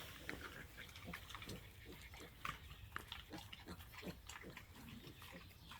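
Faint, scattered grunts and short squeaks from a litter of days-old piglets and their sow, among small clicks.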